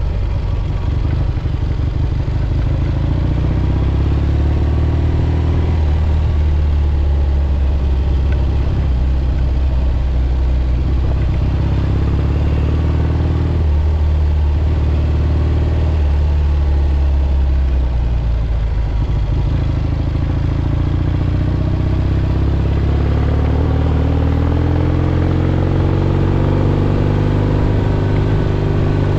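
1967 Triumph Bonneville T120's 650 cc parallel-twin engine running under way, its pitch falling and rising with throttle and gear changes, and climbing for several seconds near the end.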